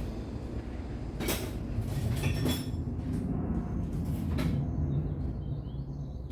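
A few sharp knocks and clatters, about a second in, around two seconds in and again past four seconds, over a steady low rumble: work noise from taking a car fender off.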